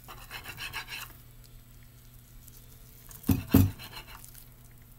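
Kitchen knife sawing through a nori-wrapped sushi roll, a scratchy rasp in the first second, then two sharp knocks about a third of a second apart a little past three seconds in as the blade strikes the plate beneath.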